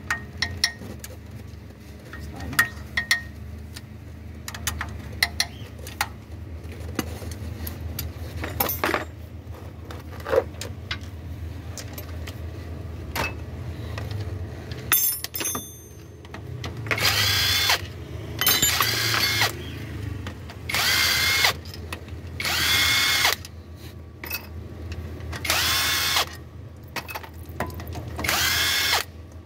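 Scattered clicks of a hand ratchet on bolts, then a cordless impact wrench whining in about five short bursts of one to two seconds each in the second half, spinning out the balancer shaft mounting bolts under a Toyota 2AZ-FE engine.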